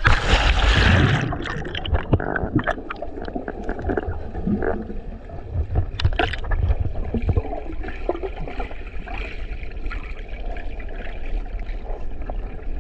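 Water splashing and gurgling close to the microphone, with scattered knocks and bumps, starting suddenly and loudly.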